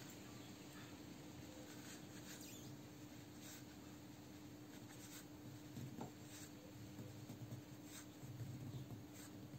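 Faint, scattered small clicks and rubbing as fingers work a steel coil spring onto a brake master cylinder's secondary piston, over a steady low electrical hum.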